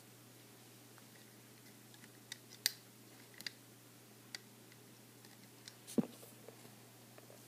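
Scattered small clicks and ticks of rubber loom bands being stretched and hooked onto the plastic pegs of a Rainbow Loom, with one louder short thump about six seconds in.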